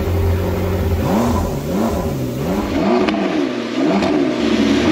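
Car engine revving up and down over and over, its pitch rising and falling about once a second.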